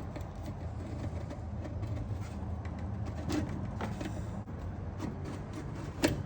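A steady low mechanical hum with a few light clicks and taps scattered through it, the sharpest about six seconds in.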